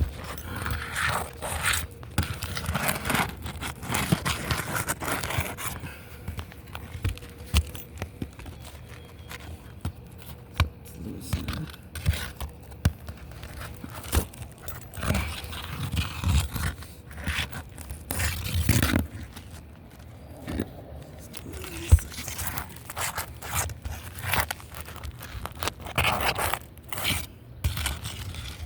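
Brittle asphalt roof shingles being worked loose, with irregular scraping, crunching and tearing as they are pried up. One sharp click comes late on.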